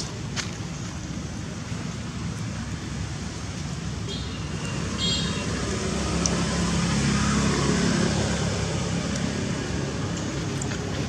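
Steady low rumble of motor traffic with wind noise, swelling as a vehicle passes in the middle. About four seconds in come a few brief high chirps.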